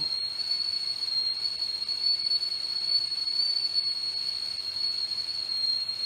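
Chefs Limited stainless steel whistling tea kettle whistling at the boil: one high, steady tone that holds without a break.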